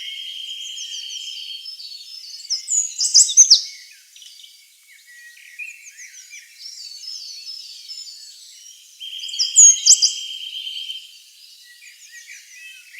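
A dawn chorus of many Atlantic Forest songbirds chirping over one another. A steady high trill is held for a couple of seconds at the start and again about nine seconds in. Loud, sharp, falling whistled notes stand out about three seconds in and again near ten seconds.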